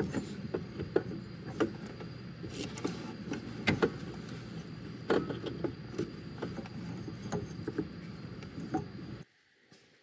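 Scattered metallic clicks and knocks of a socket and bolts on engine parts while an alternator is being bolted in, over a steady low hum. Everything cuts off suddenly about nine seconds in.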